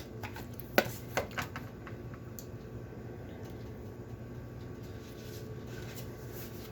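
A few light clicks and taps of small objects being handled, bunched together about a second in, over a steady low room hum.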